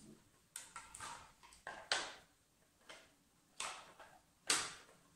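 Handling noise from a rotary dial being fitted into an old General Electric telephone's housing: about seven sharp clicks and knocks at uneven intervals with short scrapes between. The loudest knocks come about two seconds in and near the end.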